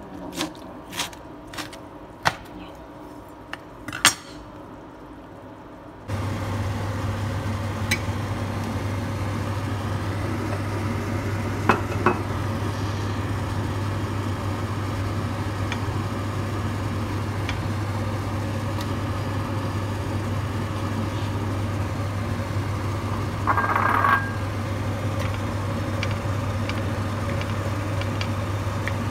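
A knife chopping kimchi on a plastic cutting board, a handful of sharp strokes in the first four seconds. Then, after a cut, a steady low mechanical hum with a light noise over it, broken by a couple of clicks and a short burst of noise near the end.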